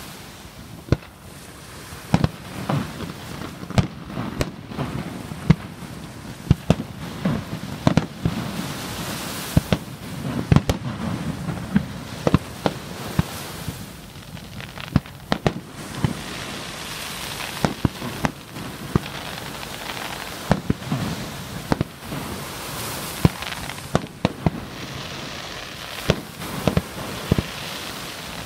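Aerial firework shells bursting in an ongoing display: sharp bangs at irregular intervals, sometimes several close together, over a continuous low rumble of echoing booms.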